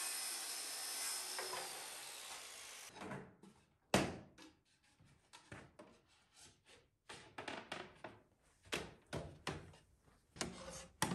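A circular saw's blade spinning down after a cut, a hiss that fades away over about three seconds. Then a sharp wooden knock and a run of short knocks and rubbing as cut plywood boards are set onto a wooden wine rack and pushed into place by hand.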